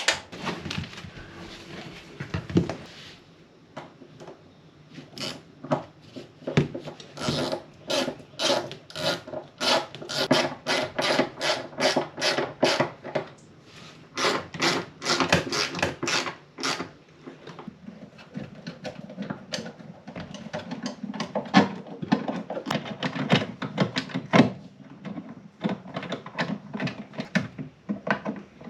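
A hand tool rasping on wood in quick back-and-forth strokes, about two a second, in runs with short pauses between them.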